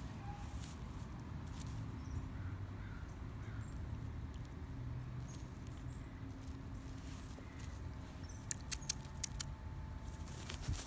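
Low steady rumble of handling or room noise, with a quick run of light clicking taps about eight to nine seconds in.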